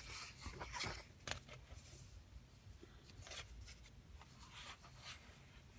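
Faint rustle of a glossy book page being turned by hand in the first second, then quieter rubbing and soft paper strokes as the hand smooths the open pages flat.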